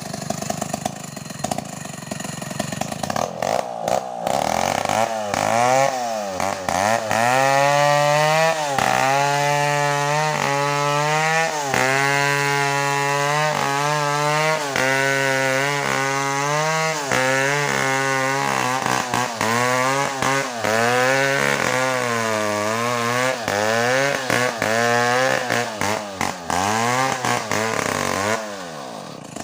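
Two-stroke chainsaw cutting through a coconut trunk at high revs. The engine pitch dips and recovers over and over as the chain loads up in the wood. It drops away near the end.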